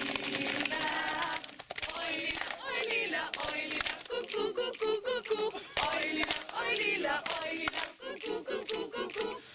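A group of young people singing and shouting together in many overlapping voices, with short sharp hits scattered through.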